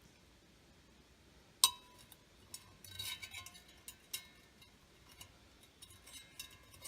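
Metal camp cookware clinking and rattling: one sharp, briefly ringing clink about a second and a half in, then a run of lighter clinks.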